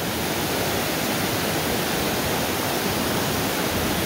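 Flooded, muddy river rushing fast over rocks: a steady, loud rush of turbulent water, the river swollen and running dangerously high from storm rain.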